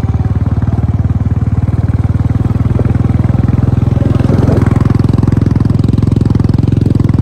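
Vehicle engine running steadily while under way, a fast even throb that grows slightly louder about four seconds in.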